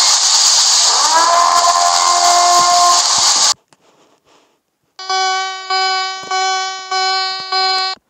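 Mock emergency-alert audio: a loud hissing noise with steady tones underneath cuts off suddenly about three and a half seconds in. After a short near-silent gap, a harsh buzzing alarm tone starts, pulsing about once every two-thirds of a second, each pulse fading before the next.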